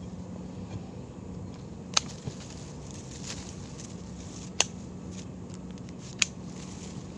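Branches of a serut (sandpaper tree) being pruned back by hand: three loud, sharp snaps about two seconds apart, with a few smaller cracks between, over a faint steady low hum.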